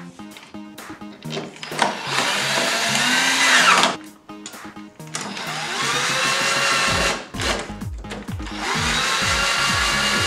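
Cordless drill-driver running in three bursts of about two seconds each, driving the screws that fix the TV's stand feet.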